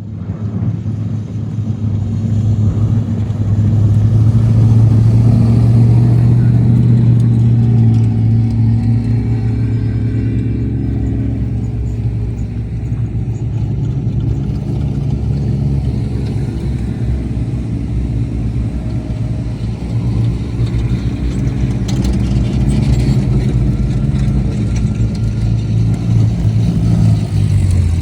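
Off-road race vehicle engine running: a steady, loud, low drone that builds over the first few seconds and then holds with small rises and dips.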